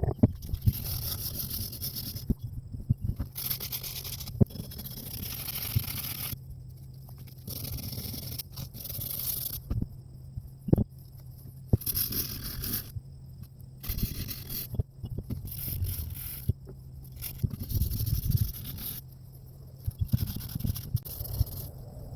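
Sandpaper scraping back and forth over a steel axe head during hand sanding, sped up and cut into short stretches that start and stop abruptly.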